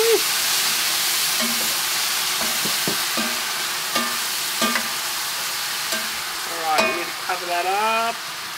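Painted crayfish frying in black bean paste in a pan, sizzling steadily as it is stirred, with the utensil knocking and scraping against the pan every second or so. A brief wavering squeal comes near the end.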